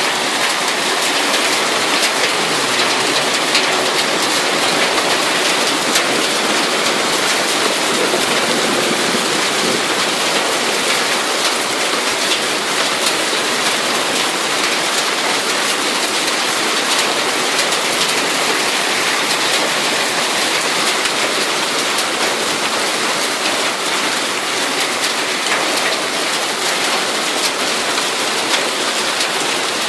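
Hailstorm: small hailstones pelting down steadily, a dense, even patter of countless tiny impacts.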